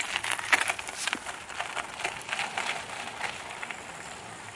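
Irregular crunching steps on a gravel path, dense in the first two seconds and thinning out after.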